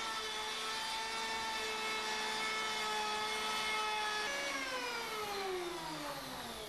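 Electric planer's motor running with a steady whine while planing the edge of a melamine shelf, then switched off about four seconds in, its pitch falling steadily as it winds down.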